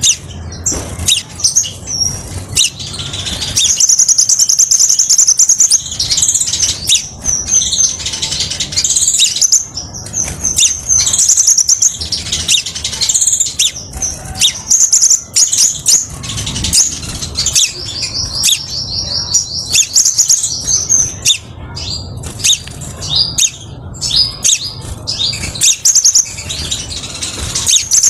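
Crimson sunbird singing a clear song of rapid, high-pitched trilled phrases, some held for two or three seconds, with short breaks between them.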